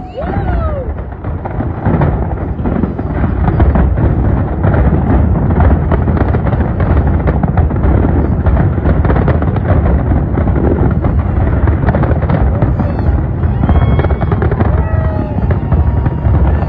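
Large fireworks display: a dense, continuous barrage of booming and crackling bursts over a heavy rumble, building over the first couple of seconds. A few whistles slide in pitch near the end.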